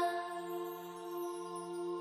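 Background music: a steady drone of several held tones.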